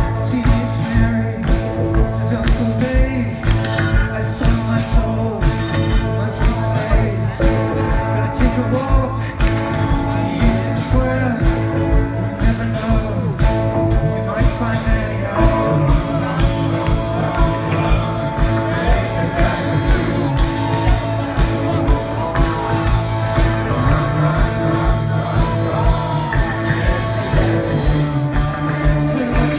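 Live rock band playing a song with a steady drum beat, guitars, keyboards and a sung vocal, heard from among the audience.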